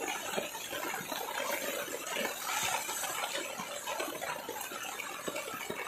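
Heavy rain falling steadily: a dense, even hiss with many small scattered ticks of drops striking.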